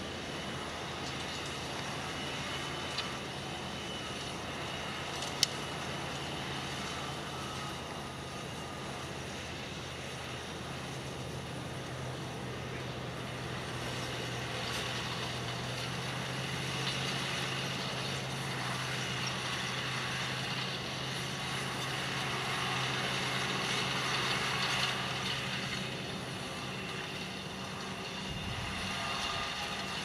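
New Holland T7.270 tractor's six-cylinder diesel engine running steadily under load as it pulls a five-furrow reversible plough through the soil. A single sharp click about five seconds in.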